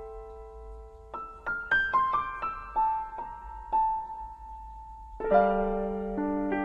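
Solo piano background music. A run of rising notes starts about a second in, a note is held, and a fuller, lower chord enters a little after five seconds.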